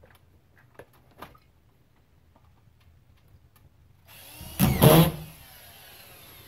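Cordless drill driving a screw into a gypsum drywall panel on the ceiling: one short run about four seconds in, loudest for about half a second, then easing off.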